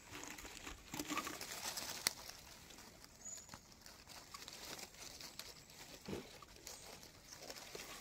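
Dry leaf litter rustling and a few sharp twig-and-leaf clicks as a mushroom is picked by hand; the sharpest click comes about two seconds in. A dove coos faintly in the background.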